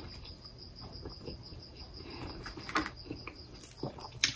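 Fingers tearing apart a fried sour pork sausage, with a few soft crackles and one sharper snap near the end, over a steady faint high-pitched whine.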